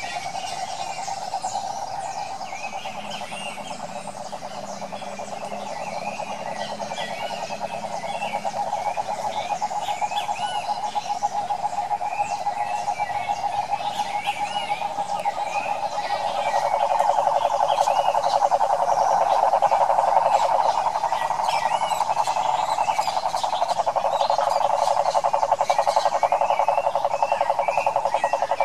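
Male cururu toad (Rhinella) calling: one long, continuous, low trill that grows louder about sixteen seconds in, with the vocal sac inflated.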